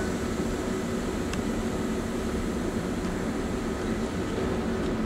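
Amsterdam metro train at the platform, giving a steady hum with a few faint whining tones.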